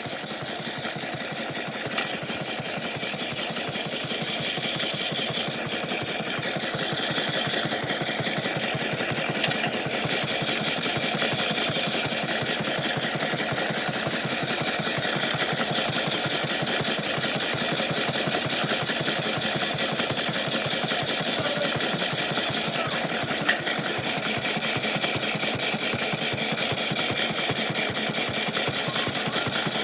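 Washing machine running with a steady, very fast mechanical rattle, and a few sharper clicks now and then.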